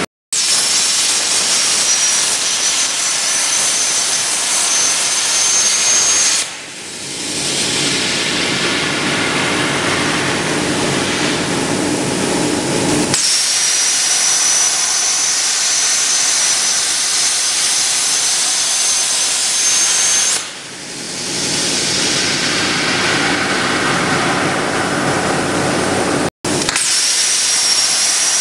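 CNC plasma torch cutting a steel workpiece: a loud, steady hiss of the plasma arc with a high whistle that slowly rises in pitch. It eases off briefly twice, about 7 and 21 seconds in, and cuts out for an instant twice.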